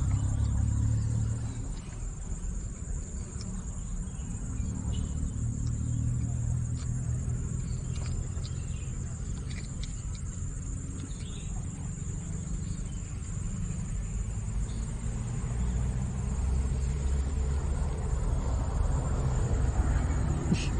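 Insects, crickets, chirring in one steady high tone, over a low rumble that swells and eases.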